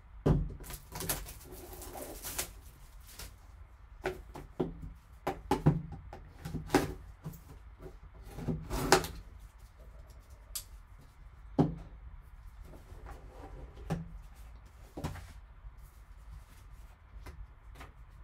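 Plastic shrink wrap on a sealed cardboard trading-card box being slit with a folding knife and peeled off, then the box lid opened: irregular crinkling, scraping and sharp taps.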